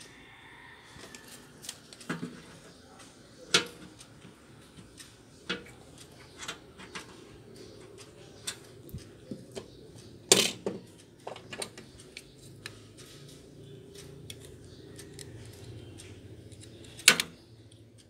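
Scattered clicks and small metallic knocks as hands handle wires and connectors at the thermal-fuse holder on a microwave oven's sheet-metal cavity wall. Two louder knocks come about ten seconds in and near the end.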